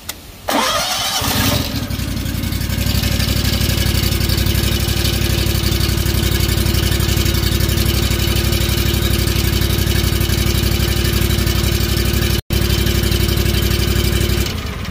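V-twin small engine starting up on freshly replaced spark plugs: it catches about half a second in, its speed rising for a second, then runs steadily until it cuts off near the end.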